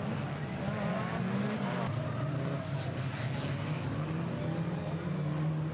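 A pack of banger racing cars running and revving together as they race past close by, with a few sharp knocks from cars hitting each other about two and three seconds in.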